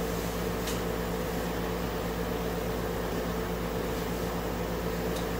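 Steady mechanical hum in a small room, a constant low drone with a few held tones over even background noise, from a running fan or air-conditioning type appliance.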